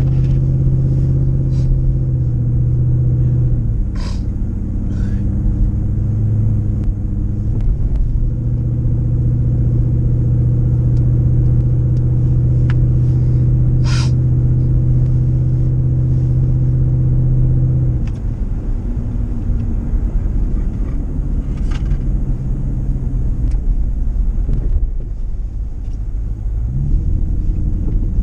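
Jeep Grand Cherokee's 4.7-litre V8 engine running at steady revs for long stretches, its pitch stepping down about four seconds in and again past the middle, then rising near the end. A few sharp clicks come through over it.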